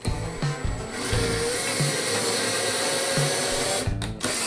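Cordless drill boring a hole in pallet wood: a steady motor whine with a hiss from about a second in, cutting off suddenly near the end. Guitar background music plays throughout.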